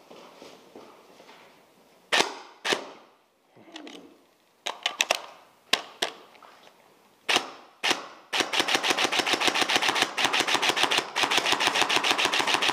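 Airsoft guns firing: a few separate single shots and a short quick burst, then from about eight seconds in a long, even stream of rapid full-auto fire.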